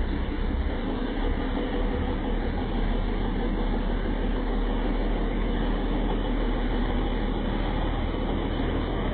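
Shaktiman army truck's diesel engine running steadily under load as the truck churns through deep mud.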